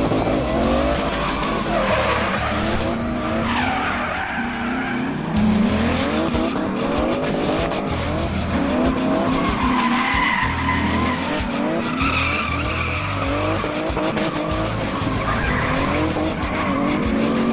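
Drift car engine revving hard, its pitch repeatedly climbing and dropping, over the squeal and scrub of tyres sliding on the tarmac.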